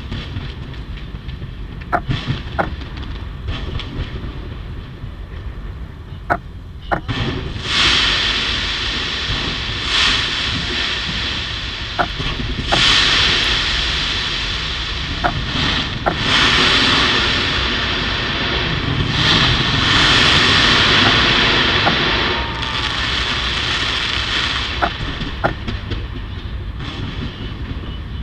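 Aerial fireworks going off in a continuous barrage: a steady rumble broken by sharp single bangs every second or two. The barrage grows louder and denser from about seven seconds in until about twenty-two seconds in, then eases.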